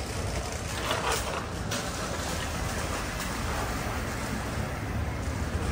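Steady street noise with a low rumble of traffic, and a few short clicks about a second in.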